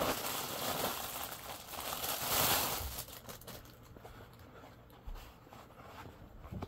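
Packaging being rustled and crinkled as a parcel is opened and handled, loudest in the first three seconds and then dying down to a few faint handling sounds.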